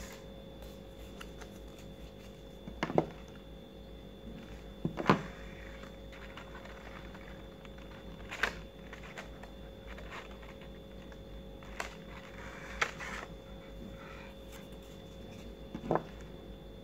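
Paper petals being handled and pressed into a large paper flower: about five short taps and rustles a few seconds apart, the strongest about three and five seconds in, over a steady faint hum.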